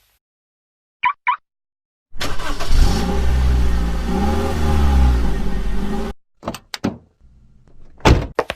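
Two short high chirps, then a car engine running for about four seconds, its pitch rising and falling, before it cuts off suddenly; a few light taps follow near the end.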